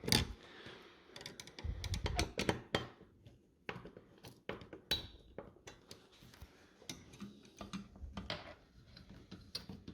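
Irregular small clicks and taps of a screwdriver and screws as a CPU cooler is screwed down onto the motherboard, tightening the screws in turn.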